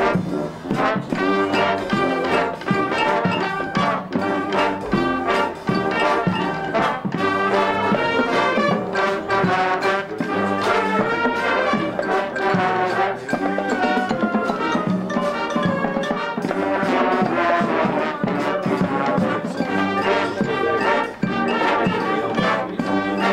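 Marching band playing a field show: massed brass carrying the melody and chords, with percussion strikes.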